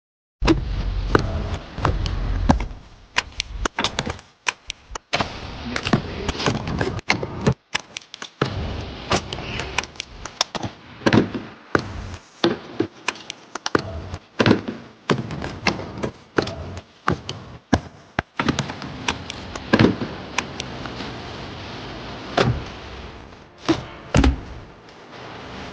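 Car being dismantled in a workshop: a busy run of taps, knocks and clicks from parts and tools, in short clips with several abrupt cuts.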